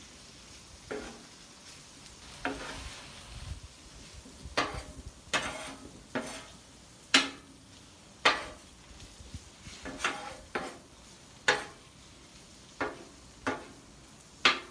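Metal spatula scraping and clacking on the steel cooktop of a Blackstone flat-top griddle as it tosses stir-fried spaghetti noodles and shredded vegetables: about a dozen sharp strokes at irregular intervals of roughly a second. A quiet frying sizzle runs between the strokes.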